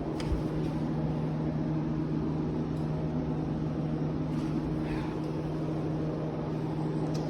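Steady hum of a coin-operated laundry machine still running, a low even drone with a few small clicks: the machine that would not switch off when unplugged.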